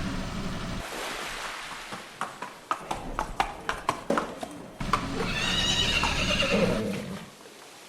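A run of sharp, irregular knocks, about two to three a second, followed by a wavering, high-pitched animal call lasting about two seconds.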